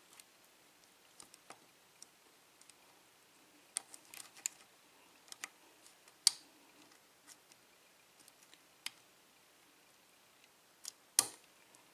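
Faint, irregular small clicks of a hook pick single-pin picking a CES five-pin euro cylinder lock, the pins setting one by one. A sharper click near the end marks the plug turning as the lock opens.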